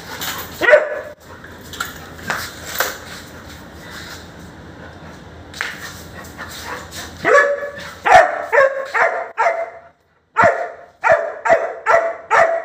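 A young Labrador-type dog barking: a single bark near the start, then from about seven seconds in a run of quick barks, a short pause, and another run of quick barks.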